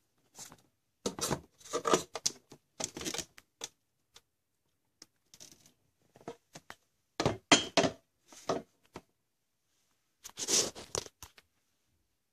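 Handling noise: rustling and rubbing against the handheld camera's microphone, in three irregular clusters of short scraping bursts.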